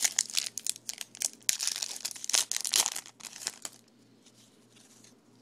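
Crinkling and tearing of a foil trading-card pack wrapper being ripped open, a rapid crackle that stops about four seconds in.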